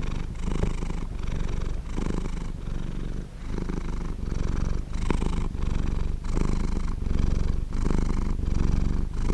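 Domestic cat purring steadily, a low rumble that shifts back and forth with each inhale and exhale, about one breath every second.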